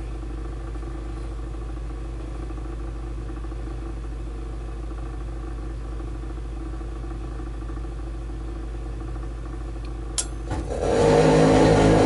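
Lennox pulse furnace on a trial for ignition: the purge blower hums steadily, then a sharp click about ten seconds in. Half a second later the pulse combustion lights with a sudden, much louder steady low drone made of several evenly spaced tones, the burner catching.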